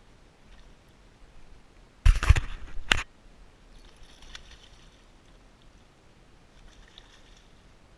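A hooked bass splashing and thrashing at the water's surface on a topwater lure. A loud, rough burst of noise lasts about a second, starting two seconds in, and quieter splashes follow.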